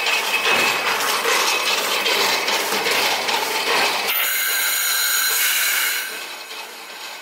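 Loud, steady hiss of a spray from a hand-held hose wand. About four seconds in, a cut brings a brighter hiss with a few steady tones, which fades away near the end.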